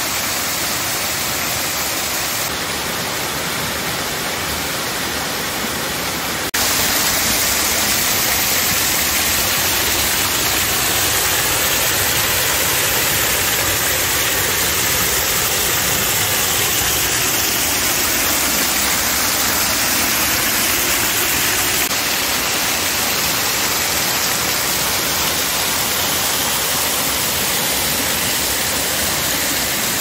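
Waterfall and stream water rushing steadily. The level jumps up suddenly about six seconds in and drops slightly about two-thirds of the way through.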